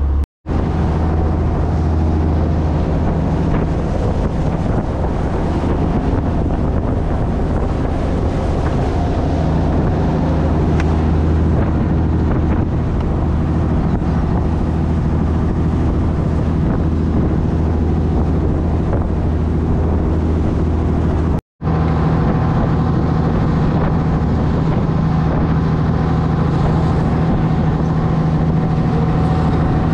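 Fishing boat under way at speed, its engine running with a steady low hum under the rush of water along the hull and wind on the microphone. The sound cuts out for an instant twice, once just after the start and once about two-thirds through.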